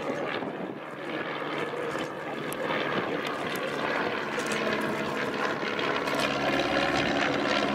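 De Havilland Tiger Moth biplane flying overhead, its four-cylinder inline engine and propeller droning steadily, growing a little louder from about six seconds in.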